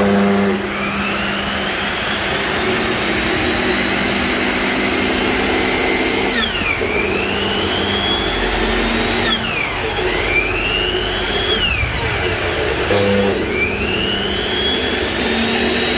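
C15FB aluminium-cutting miter saw running with a high motor whine. The pitch climbs as it spins up, then dips sharply about four times as the blade is drawn into the cut and recovers after each dip.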